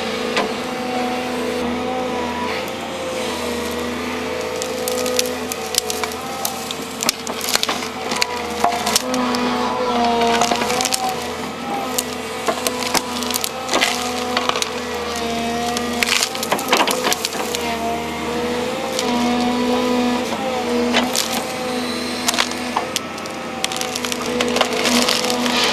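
Volvo excavator's engine running under load, its pitch wavering as the hydraulics work, while tree roots crack and snap again and again as they are torn out of the ground.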